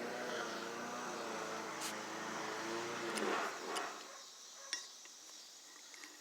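A motor or engine hums steadily, then fades out about four seconds in, leaving a few light clicks.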